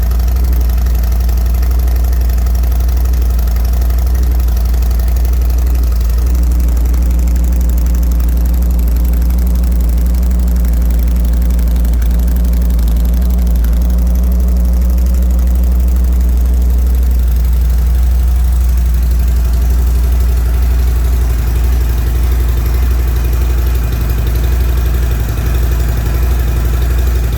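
2022 Harley-Davidson Street Glide's Milwaukee-Eight V-twin idling steadily.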